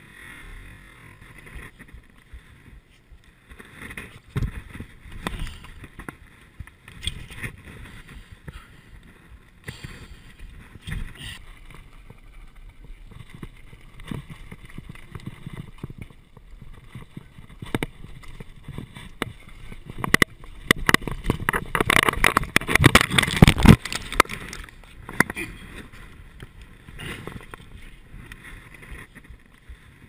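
Giant full-suspension mountain bike ridden over a rocky trail: tyres crunching on loose stones and the bike rattling and clattering over rocks, with a dense run of loud knocks about twenty seconds in.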